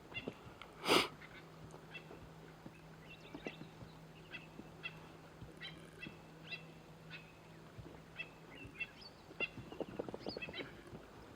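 Birds calling outdoors: many short, high chirps repeated every half second or so, over a faint steady low hum. A single loud knock or bump about a second in.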